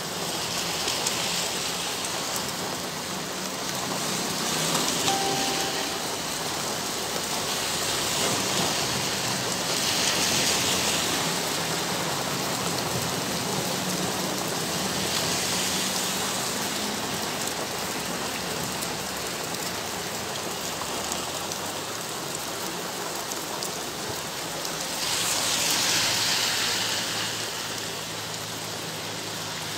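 Heavy rain pouring down in a steady hiss, swelling louder several times.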